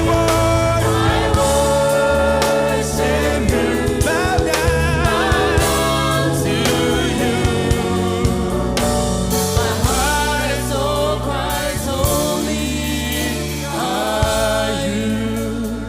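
Gospel worship song with a choir and lead voices singing over a band with steady bass and drums.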